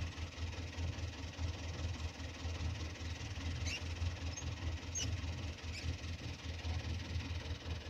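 Fiat 640 tractor's diesel engine running at a distance, a steady low pulsing rumble. A few short high chirps come near the middle.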